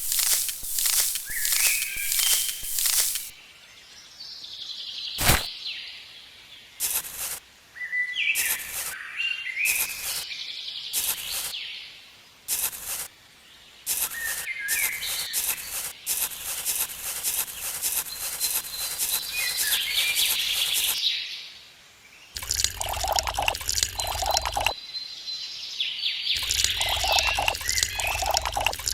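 Birds chirping over a run of sharp, irregular taps or knocks. Near the end a low hum with a pulsing pattern comes in twice.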